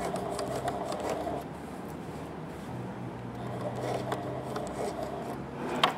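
Domestic sewing machine running slowly, stitching through a thick folded denim jeans hem at the bulky seam. Its motor hum shifts in pitch a couple of times as the speed changes.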